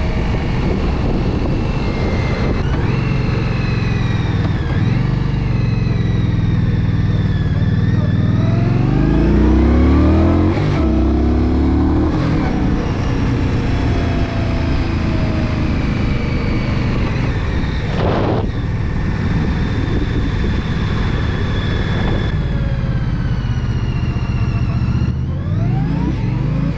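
2017 Indian Scout 60's liquid-cooled V-twin engine running under way, over a steady rush of wind and road noise. The engine rises in pitch as it accelerates about a third of the way in and again near the end.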